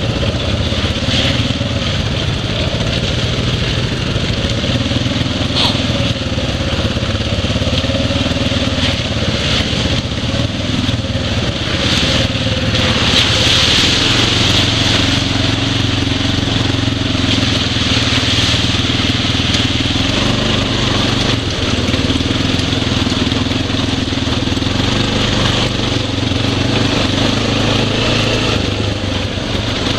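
ATV engine running at a fairly steady speed during a trail ride, heard from a goggle camera on the rider. Its note shifts a little up and down under a constant, dense noise of wind and terrain.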